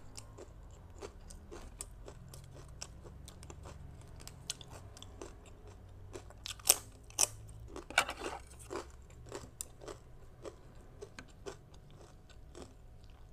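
Close-up chewing of crisp toasted sesame rice cracker (bánh đa) with shrimp and green mango salad: a run of sharp, irregular crunches, the loudest about seven to eight seconds in.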